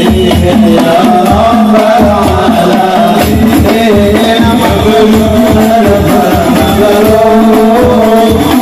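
Hadroh ensemble performing sholawat: men's voices singing together into microphones over a steady rhythm of rebana frame drums, amplified through loudspeakers.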